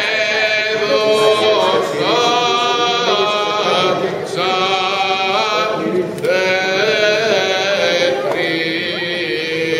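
Greek Orthodox Easter chant: voices singing in sustained phrases of about two seconds each, with short breaks between them.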